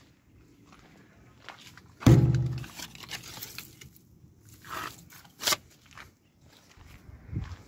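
Footsteps on dry ground while walking close around a parked truck, with a sudden loud knock about two seconds in that rings briefly, and a sharp click later.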